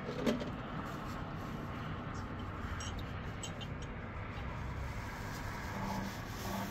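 Distant road traffic: a car driving along the road below, heard as a steady low hum, with a few faint clicks.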